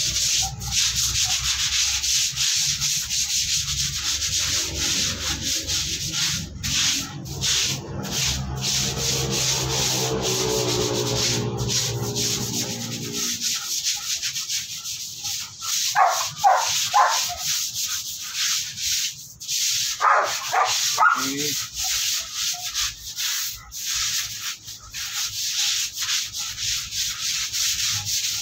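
Scrubbing a wet, soapy concrete floor: a steady rasping scrub that keeps on, with a low hum underneath that stops about halfway.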